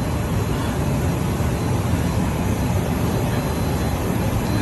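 Small airplane's cabin noise in flight shortly after takeoff: a steady rush of engine and airflow noise, heaviest in the low end, with a faint steady high whine.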